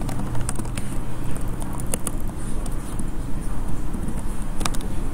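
Computer keyboard being typed on: scattered sharp key clicks, a few at a time, over a steady low rumble of room noise.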